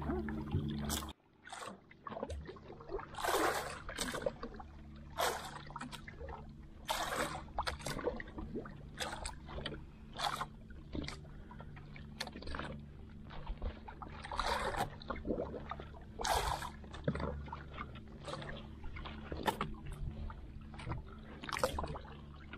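A small engine hums steadily in a wooden outrigger boat at night, dropping out for about a second near the start. Over it come short, irregular splashes and handling noises as fishing gear and catch are worked on the boat.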